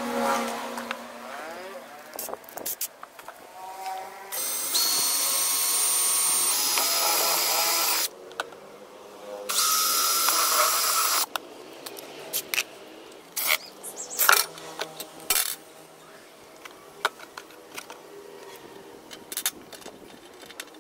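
Cordless drill running in two steady bursts, the first of a few seconds and the second shorter, cutting holes through a thin clear plastic box. Scattered clicks and knocks follow in the second half.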